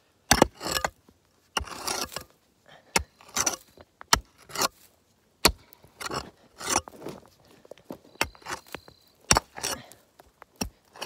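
A hand digging tool scraping and striking rocky dirt and stones, about a dozen irregular strokes, each a sharp clink or gritty scrape.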